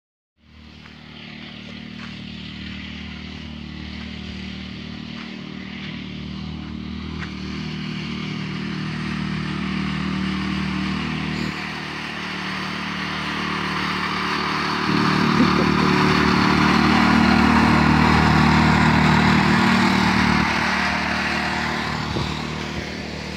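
Walk-behind tractor engine running steadily as it tows a loaded trailer, growing louder as it approaches, loudest for a few seconds, then fading somewhat as it passes.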